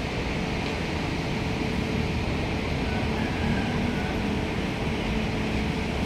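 Steady rumble of city traffic, heavy in the low end, holding even throughout with no distinct events.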